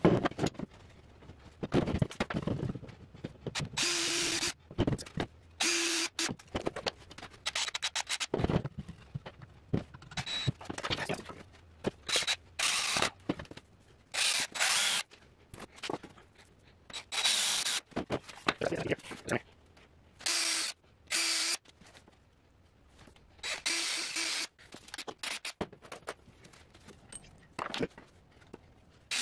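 Cordless drill boring pilot holes and driving wood screws through particleboard into pine, in repeated bursts of one to two seconds with pauses between them. A steady motor whine runs through many of the bursts.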